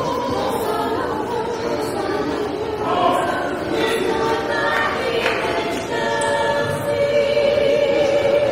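Vocal group singing in harmony, several voices holding long notes together in chords, ending on a long held chord.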